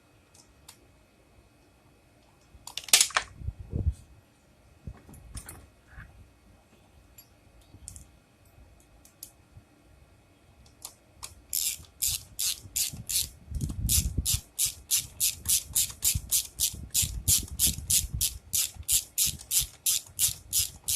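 Hand socket ratchet clicking quickly and evenly, about three to four clicks a second, as bolts are run back into a lawn mower during reassembly. Earlier there is a sharp clatter about three seconds in and some scattered clicks of tools and parts being handled.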